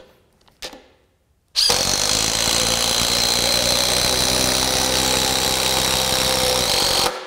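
DEWALT Atomic compact impact driver hammering steadily under load as it drives a long lag screw into a wooden beam, starting about a second and a half in and cutting off shortly before the end. A couple of small handling clicks come before it.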